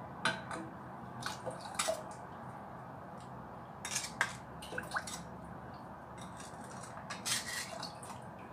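A spoon clinking and scraping against a ceramic bowl as sugar is tipped into a stainless steel pot of water, in a dozen or so sharp clinks scattered through, over a low steady hiss.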